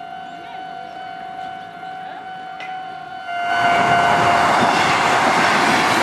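A Japanese level crossing's electronic warning signal sounding as a steady tone; about three seconds in, a Kintetsu train on the Minami Osaka Line reaches the crossing and runs past with loud wheel and rail noise over the continuing signal.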